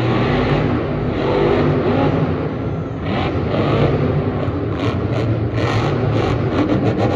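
Monster truck engine running loud and revving, its pitch rising and falling as the driver works the throttle.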